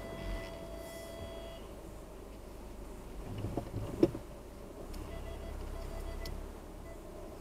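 Inside a slowly moving car, the engine runs low under a steady electronic beep that stops after about a second and a half. A sharp click comes about four seconds in, then a short run of quick pulsed electronic beeps.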